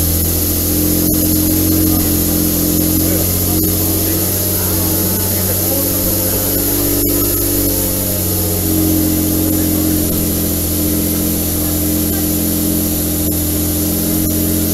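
Toyota 2000GT's straight-six engine idling steadily with the bonnet open.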